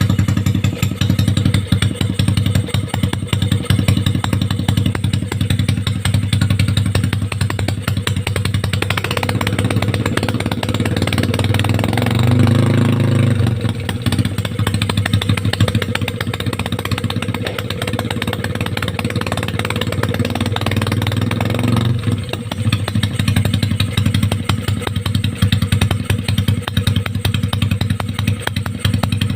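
Yamaha Mio i 125 scooter's single-cylinder four-stroke engine running through an open pipe exhaust, with a rapid uneven beat. The engine is brought up a little from about eight seconds in, peaks briefly with a short rev around twelve seconds, and drops back to idle about twenty-two seconds in.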